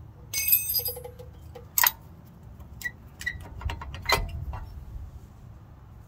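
Metal brake parts clinking as the old front brake pads are worked out of the caliper bracket. A ringing metallic clatter comes about half a second in, a sharp click near two seconds, then a few lighter clicks and taps.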